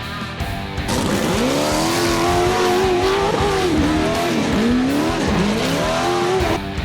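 A vehicle engine revving hard several times, its pitch climbing and dropping, over guitar background music; the revving begins about a second in and stops just before the end.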